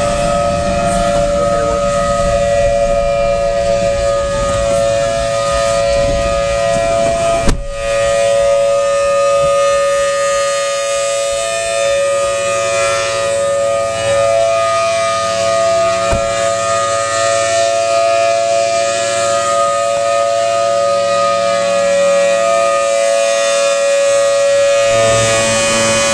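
Federal Signal Thunderbolt 1000T tornado siren sounding a test: a loud, steady wail of two close tones held together. A low rumble under it ends with a sharp knock about seven and a half seconds in.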